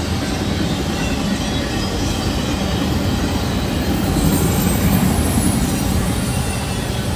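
Norfolk Southern freight train of enclosed autorack cars rolling past: a steady rumble of steel wheels on rail, a little louder about four to five seconds in.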